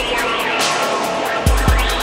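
Electronic dance track: the steady kick drum drops out for a short break, leaving the regular hi-hat ticks, and comes back about one and a half seconds in.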